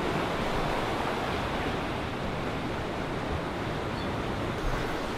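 Ocean surf washing over a rocky shore, a steady rush with no break.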